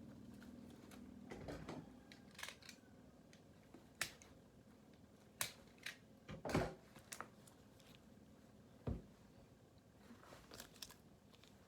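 Handling of a newly unboxed motorcycle jacket and its packaging: scattered clicks, rustles and knocks, with the loudest knocks about six and a half seconds in and again near nine seconds.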